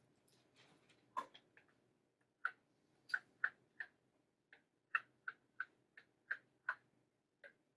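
Stylus tip tapping and clicking on a tablet screen while writing by hand: a dozen or so short, sharp clicks at uneven spacing, up to about three a second.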